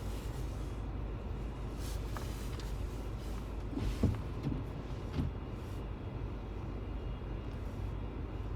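Car cabin noise while driving on a snowy road: a steady low rumble of engine and tyres, with a short knock about four seconds in and a fainter one about a second later.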